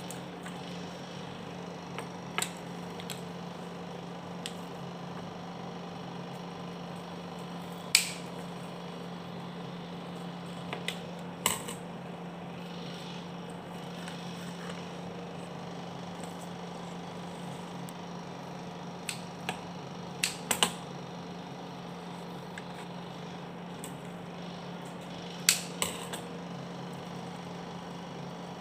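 Hands arranging flower stems in a pot: a handful of short sharp clicks and taps, scattered and some in quick pairs, over a steady low hum.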